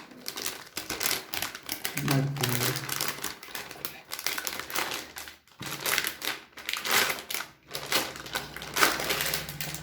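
Motherboard packaging being unpacked by hand: a busy run of plastic crinkling and cardboard rustling, with many quick irregular crackles and clicks.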